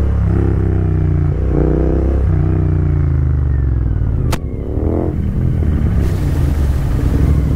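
Royal Enfield Continental GT 650 parallel-twin motorcycle engine idling with the throttle blipped, revs rising and falling. About four seconds in a sharp click, then the revs climb as the bike pulls away, with a steady hiss joining near the end.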